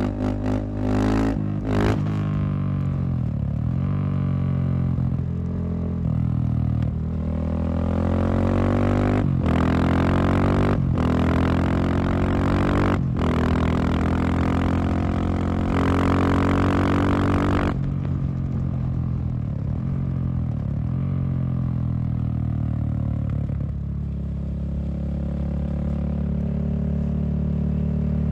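Husqvarna SM610 supermoto's single-cylinder four-stroke engine running and revving, its pitch rising and falling, with a few brief breaks in the sound around the middle.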